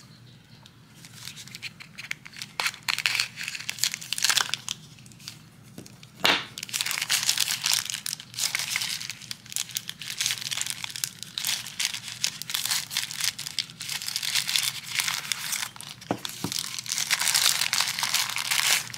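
Plastic packaging crinkling and rustling as it is unwrapped and torn open by hand, quieter at first and busier after about six seconds, with a few sharp knocks about a third of the way in and near the end.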